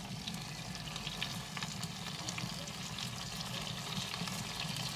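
Whole chicken sizzling in a pot inside a hot smoker at close to 160 degrees: a steady frying hiss with scattered small crackles.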